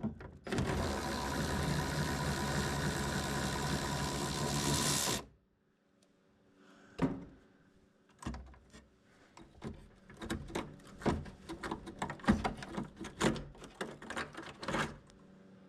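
A cordless power tool runs steadily for about five seconds, backing out an 11 mm fastener on a third brake light, then stops. After a short pause comes a string of irregular clicks and knocks as the plastic parts and fittings are handled.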